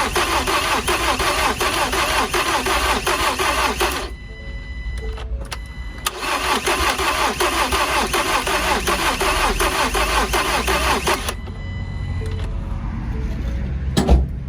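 2019 Ford Transit Connect engine cranking on the starter without catching, in two long attempts of about four and five seconds with a pause between. Short electronic beeps sound in the pause and afterwards, and there is a single thump near the end. The engine is getting no fuel because the fuel pump's plug is broken off.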